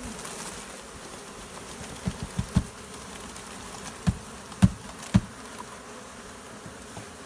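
A honeybee swarm buzzing steadily, with about six dull knocks between about two and five seconds in, as the bees are tapped loose into the hive box.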